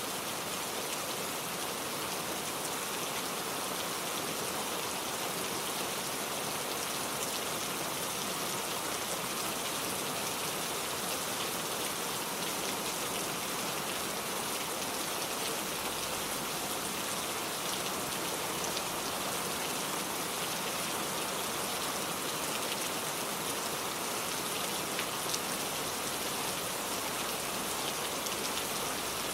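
Heavy rain falling steadily: a dense, even hiss of rain on surfaces, with scattered individual drop ticks.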